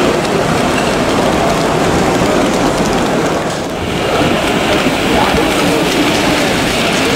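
Model trains running along a layout over the steady babble of a crowded exhibition hall; the sound dips briefly about halfway through.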